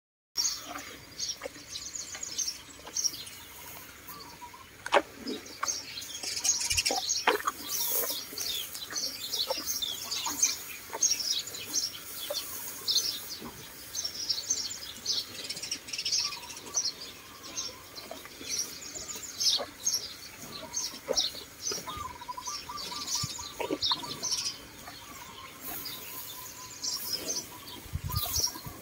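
Many small birds chirping and twittering in quick high runs almost without pause, with a few short clicks.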